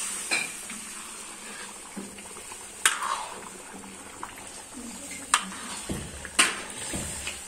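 Metal ladle stirring curry in a large iron kadhai, with a few sharp clinks of the ladle against the pan over a steady sizzle of frying.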